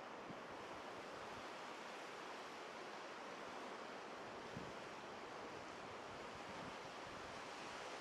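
Small surf breaking and washing up a flat sandy beach: a steady, even hiss of water.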